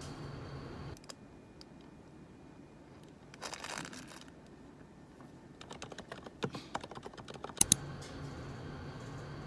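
Typing on a computer keyboard: a quick run of key clicks ending in two loud strokes, with a brief burst of noise a couple of seconds before. At the start and end there is a steady low hum inside an elevator car.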